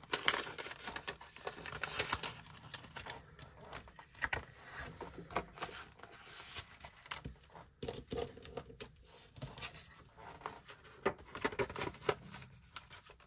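Paper banknotes and envelopes being handled and slid into place: irregular rustling and crinkling with small clicks and taps.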